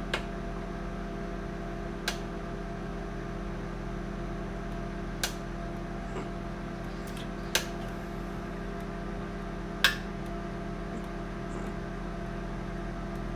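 Microwave oven running with a steady hum while heating eggs in a poacher, with four short sharp pops spaced a couple of seconds apart.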